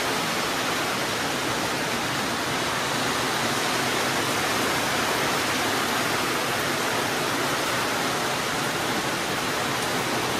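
Heavy rain falling steadily, an even hiss with no letup.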